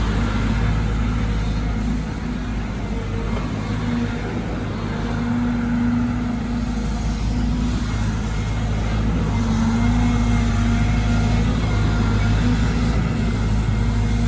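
Caterpillar 313GC hydraulic excavator's diesel engine running steadily while it works, its level dipping slightly a few seconds in and rising again past the middle as the load changes.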